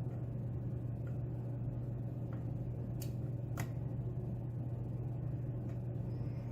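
Faint small metallic clicks of a lock pick working the pins of a Schlage pin-tumbler lock held under tension, two sharper clicks about three and three and a half seconds in. A steady low hum runs underneath.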